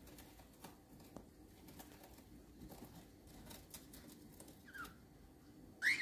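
Cockatiel picking and rustling at paper and twigs with its beak, making soft scattered clicks, then two short chirps near the end, the second one louder.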